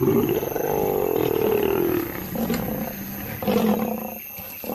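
Lions fighting, a nomad male against two lionesses defending their cubs, giving aggressive calls: one long call for about the first two seconds, then shorter calls after a brief lull.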